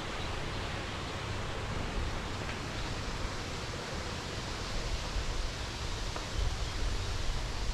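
Wind rushing over the microphone: a steady hiss with uneven low rumbling gusts.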